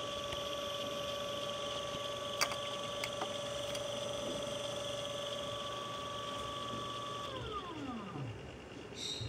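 RH7-1384 brushless DC (BLDC) outer-rotor motor spinning at steady speed with a steady whine, then about seven seconds in the whine falls smoothly in pitch as the motor winds down, its drive cut at the breadboard. A single sharp click sounds a couple of seconds in, and a short click near the end.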